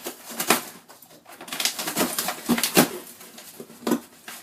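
Dog tearing and scratching at a cardboard shoe box, a string of short rips and scrapes, with a few brief low vocal sounds from the dog.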